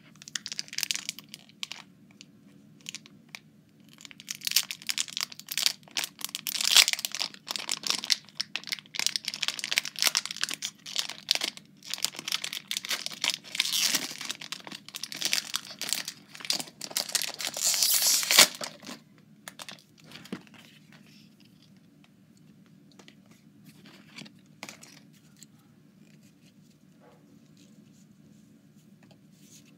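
Pokémon card booster packs being torn open: foil wrappers tearing and crinkling in dense bursts for about fifteen seconds, settling into scattered light rustles and clicks for the last ten seconds.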